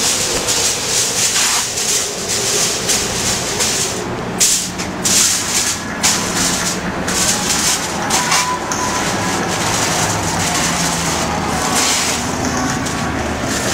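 Aluminium foil crinkling and rustling as a rack of ribs is wrapped in it, over a steady low engine hum.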